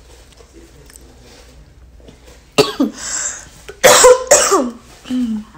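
A person coughing: four or five sharp, loud coughs in quick succession, starting about halfway in after a quiet stretch.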